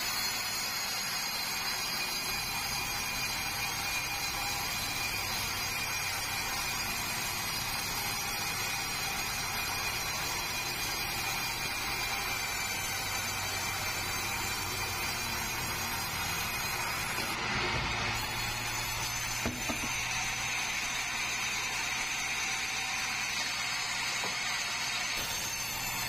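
Band sawmill headrig sawing a log lengthwise: the band-saw blade runs steadily through the wood with a constant high-pitched whine. A deeper hum joins about two-thirds of the way through.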